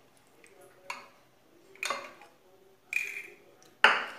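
Spatula clinking and scraping against a small glass bowl while stirring an oily herb marinade: a few separate clinks about a second apart, one ringing briefly about three seconds in, and a louder knock near the end.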